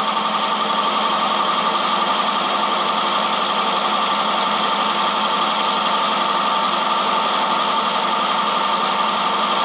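Treadmill DC motor belt-driving a benchtop horizontal mill through pulleys, running steadily with a constant whine over a hum.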